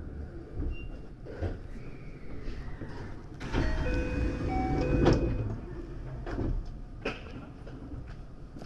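Sliding passenger doors of a 521 series electric train moving, louder from about three and a half to five seconds in, with a few short chime tones over them, against the steady low hum of the standing train.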